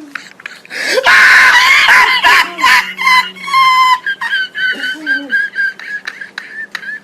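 High-pitched screaming voice, loud from about a second in, breaking into a run of short, shrill held squeals in the second half.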